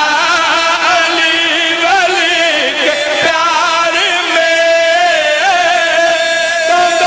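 A man chanting a devotional Shia qasida in long held notes with a quavering vibrato, gliding from one pitch to the next.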